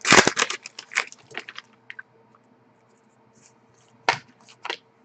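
Close-up handling noise: a quick run of small scratches and clicks for about two seconds, then a faint steady hum with a few more clicks near the end.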